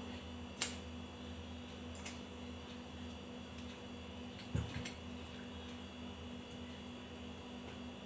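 Steady low electrical mains hum, with a sharp click about half a second in, a fainter click a little later and a soft knock past the middle: small handling noises from fitting a wire into a ceiling fan's terminal connector.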